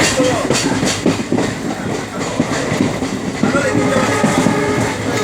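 Train running along the track, its wheels clacking over the rail joints.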